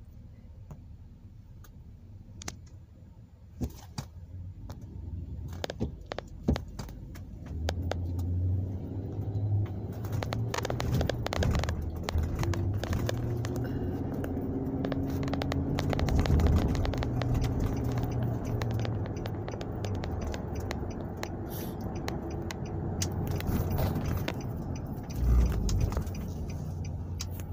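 Car cabin noise: a low engine and road rumble that grows louder about eight seconds in as the car gets moving, with scattered clicks and scrapes throughout.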